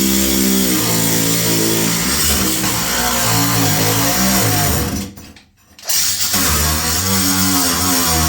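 A cordless power tool's motor running under load while cutting, its pitch shifting up and down as the load changes. It stops for about a second midway, then starts again.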